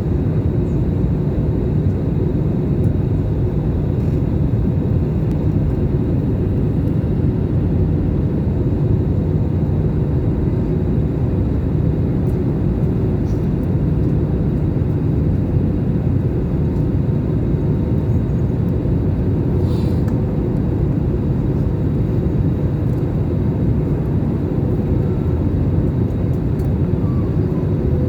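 Airliner in flight: a steady low roar of engines and rushing air with a faint constant hum, unchanging throughout.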